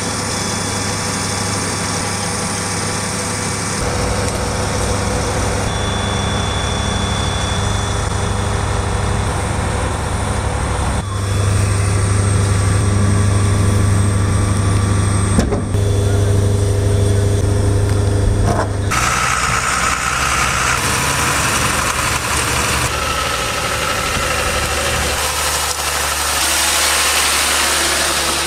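Turbocharged diesel engine of a heavy 8x8 bridge-laying truck running steadily with a deep hum, its sound changing abruptly several times.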